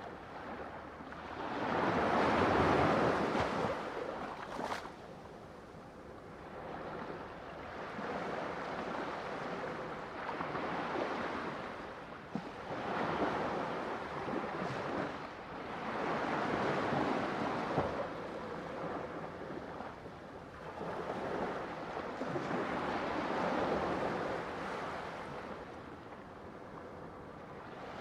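Ocean waves breaking on a shore, the surf swelling and falling away in rolling surges every few seconds, the first and strongest a few seconds in.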